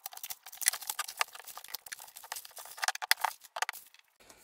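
Plastic stretch wrap crinkling and tearing as it is pulled off a cylinder head: a rapid, irregular crackle that stops shortly before the end.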